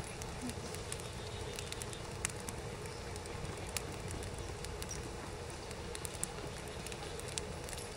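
Split-log wood fire burning in an open fire pit, crackling, with a few scattered sharp pops over a steady low hiss.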